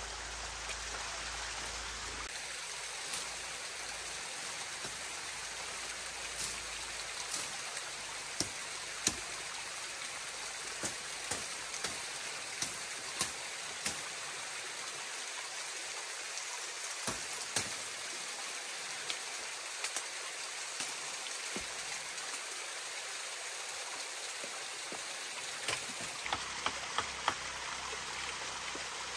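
Steady rush of water, with irregular sharp taps and clicks scattered through it.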